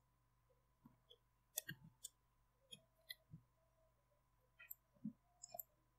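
Faint, irregular clicks of a computer mouse and keyboard, about a dozen in all, over near-silent room tone.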